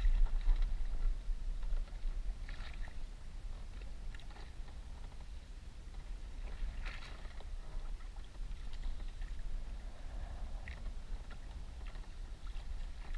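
Wind buffeting the microphone in a steady low rumble, with waves slapping and sloshing irregularly against the side of a small boat on a choppy sea. It is louder in the first second or two.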